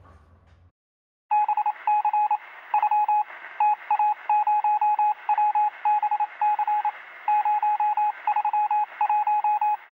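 Rapid electronic beeps like touch-tone dialing, short tones of the same pitch in irregular clusters, heard through a narrow telephone-like band. They start about a second in and run in bursts until the end.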